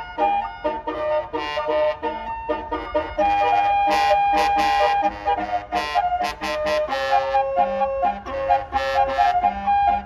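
Bus Basuri telolet horn playing a flute-like melody of stepped, held notes over a low rumble.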